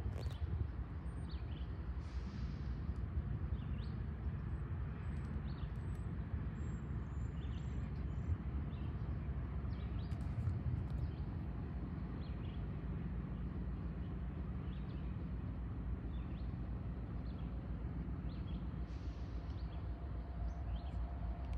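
Steady low rumble from a Norfolk Southern freight train of tank cars and covered hoppers, with small birds chirping now and then. A faint steady whine comes in near the end.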